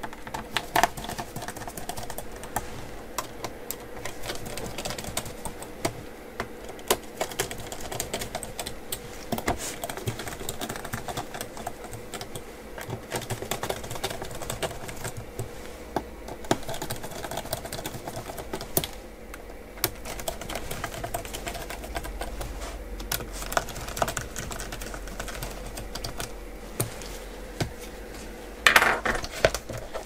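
Irregular small clicks and taps of a precision screwdriver and gloved hands working the screws of a laptop's metal bottom cover, a dry keyboard-like clatter.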